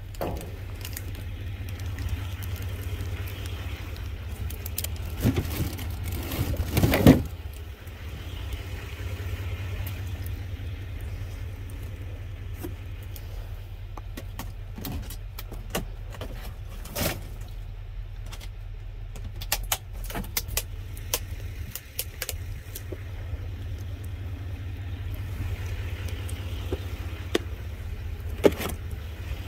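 Cardboard produce boxes and plastic packaging being handled, with rustling, scattered clicks and knocks, loudest about five to seven seconds in, over a steady low hum.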